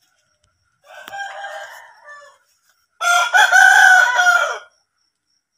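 Rooster crowing twice: a quieter crow about a second in, then a louder crow at about three seconds, each drawn out for over a second.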